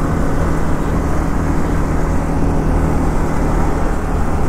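Yamaha motorcycle engine running at a steady low pitch under light throttle, mixed with wind and road noise. The bike is pushing a second motorcycle that has run out of petrol.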